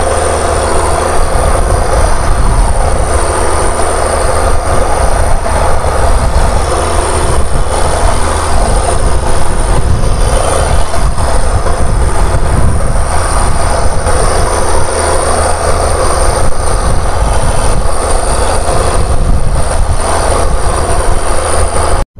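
Fishing boat's engine running steadily at cruising speed under way, a loud continuous rumble and low hum mixed with the rush of water along the hull.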